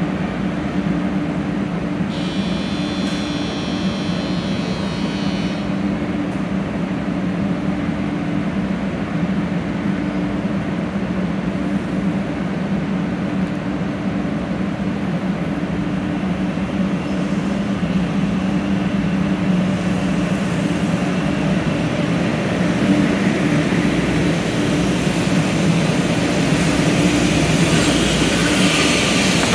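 A 500-series Shinkansen humming steadily while it stands at the platform, with a brief high ringing about two seconds in. Near the end the sound grows louder as the train starts to pull out.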